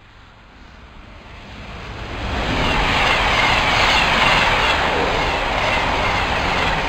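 Train passing at speed through a station, its wheel and rail noise swelling over the first couple of seconds as it comes close, then staying loud as it rushes past.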